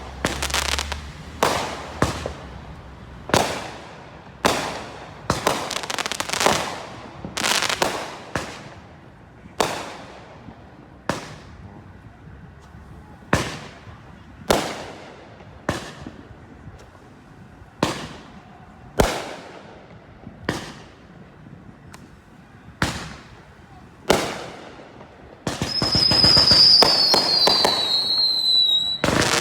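Fireworks going off: a string of sharp bangs about a second apart, each trailing off after the blast. Near the end a whistling firework shrieks, its pitch slowly falling, over crackling.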